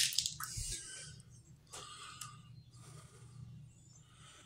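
Quiet handling noise: a short sharp knock right at the start, then a few faint clicks and rustles over a low hum as things are moved about.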